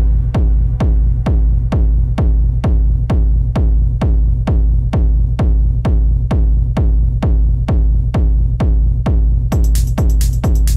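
Electronic techno music with a steady four-on-the-floor beat of a little over two beats a second, driven by a deep kick drum that drops in pitch on each hit. Near the end, a crisp high hi-hat pattern comes in over the beat.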